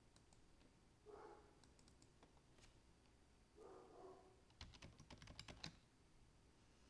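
Faint typing on a computer keyboard: a quick run of about ten keystrokes starting about four and a half seconds in, with two soft muffled sounds before it.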